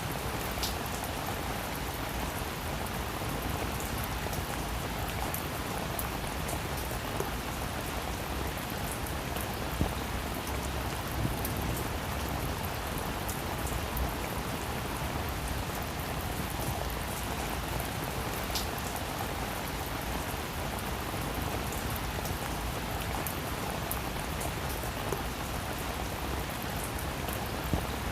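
Heavy rain falling steadily, a dense even hiss with scattered individual drops pattering on a surface.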